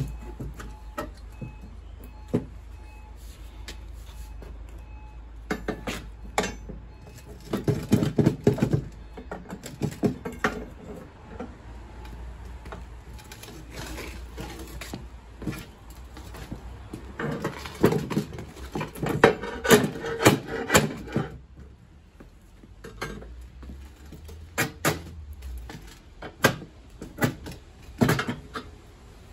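A steel crowbar levering and scraping at the smashed door and lining of a Phoenix SS1180 steel safe, with irregular bursts of metallic clanks, knocks and rattles.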